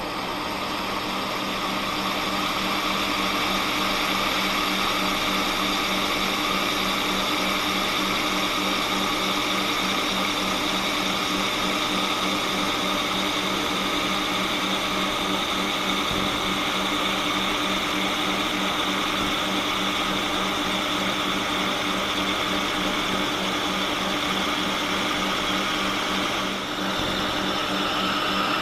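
Monarch lathe running while a three-flute core drill cuts into the bore of a cast iron handwheel, a steady whine and hum that builds over the first few seconds and then holds even. The cut is smooth, with no chatter.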